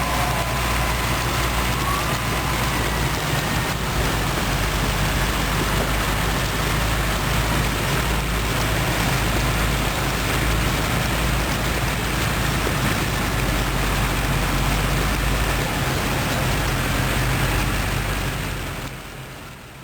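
Hino FM260TI concrete mixer truck's diesel engine running steadily, with a constant rushing noise over it; the sound fades out near the end.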